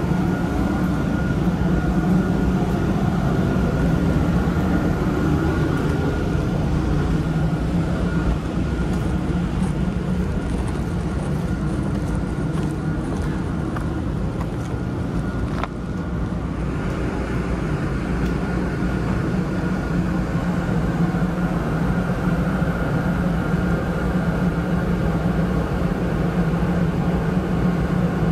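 Electric PCC streetcar running past close by and drawing up to the stop, with a steady rumble and hum and a faint steady whine above it. A single click comes about halfway through.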